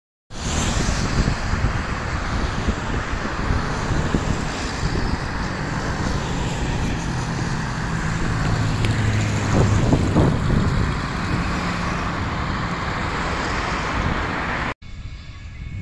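Small propeller plane flying low overhead: a steady engine and propeller drone mixed with wind-like noise, swelling to its loudest about ten seconds in. It cuts off suddenly near the end, giving way to much quieter background noise.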